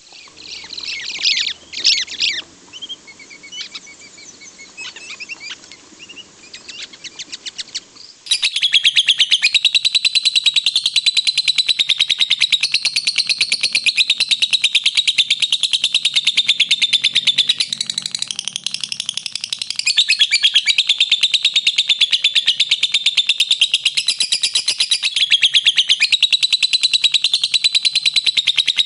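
Pet lovebirds chirping: scattered separate high chirps at first, then from about eight seconds in a loud, fast, continuous run of chattering chirps.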